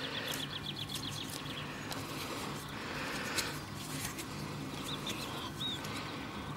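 Small birds singing: a quick run of about ten high chirps in the first second, then a few scattered high calls later on.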